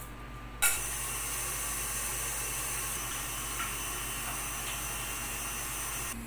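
Steady high hiss that starts abruptly with a click about half a second in and stops suddenly just before the end.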